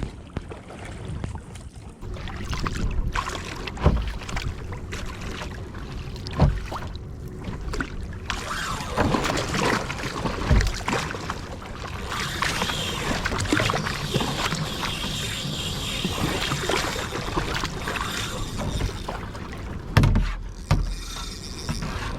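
Water sloshing and splashing around a sit-on-top fishing kayak at sea, with a few dull knocks against the hull.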